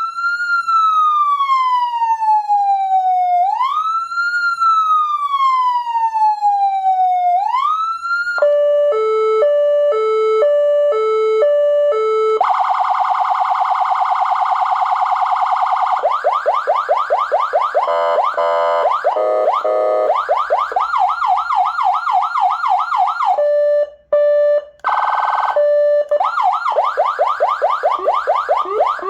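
SA920 200 W electronic siren amplifier sounding through a siren speaker and stepping through its tones. It opens with a slow wail that rises quickly and falls slowly, twice. A hi-lo two-tone follows, changing pitch about twice a second, then a rapid warble and fast yelp sweeps, broken by short gaps and a brief buzzy burst before the wail returns.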